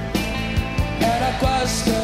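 Background music: a song with a sung melody over a steady drum beat.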